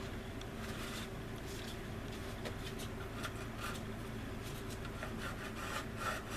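Light scratchy rubbing strokes on a resin model wing, turning into a quicker, more regular back-and-forth sanding near the end, over a steady low hum.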